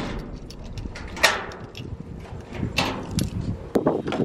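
A few rustling swishes, then a cluster of sharp clicks and knocks near the end as a hand works a car's door handle.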